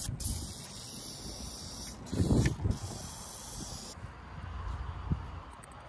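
WD-40 aerosol can spraying in a long hiss, with short breaks about two seconds in; the spraying stops about four seconds in. A dull bump about two seconds in.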